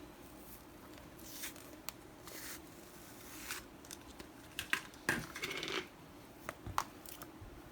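Cloud slime being poked, squeezed and pulled apart by hand, giving faint sticky clicks, pops and short crackling rustles at irregular intervals.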